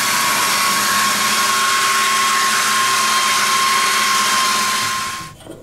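Makita 9910 belt sander running steadily with a constant whine over the hiss of the belt, sanding the edge of a wooden breasthook to fit. It winds down and stops near the end.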